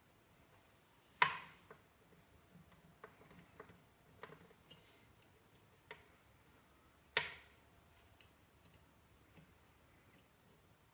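Scattered light clicks and knocks, with two sharper clicks about a second in and about seven seconds in.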